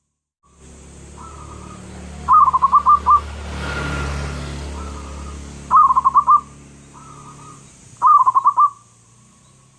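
Zebra dove (perkutut) cooing in three phrases about three seconds apart. Each phrase is a soft opening note followed by a quick run of about five loud, rolling coos. A faint rushing hiss swells and fades in the background mid-way.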